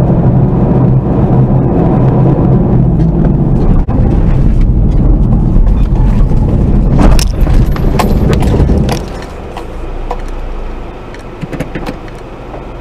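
A car leaving the road and running over rough ground and through dry brush: a loud rumble and rattle inside the cabin, with sharp knocks around seven to eight seconds in. After about nine seconds it drops to a quieter rattle with scattered clicks as the car comes to rest.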